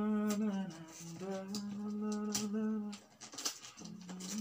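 A man humming a slow wordless tune in long held notes, which break off about three seconds in and resume briefly near the end. Paper rustles and crinkles throughout as he handles the gift wrapping.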